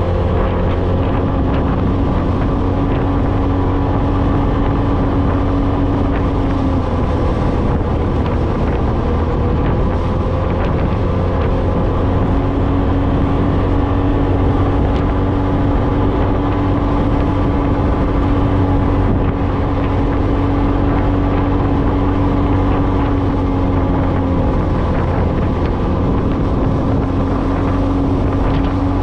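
Off-road vehicle engine running at a steady cruising pitch while driving over sand, easing off briefly a couple of times before holding steady again.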